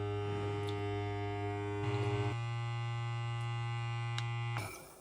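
Cordless electric mason jar vacuum sealer's pump motor running with a steady hum as it draws air out of the jar. Around two seconds in it briefly gets louder and shifts slightly in pitch, and it stops shortly before the end.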